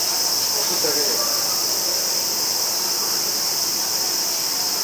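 Steady high-pitched hiss of background noise, with a faint voice briefly about a second in.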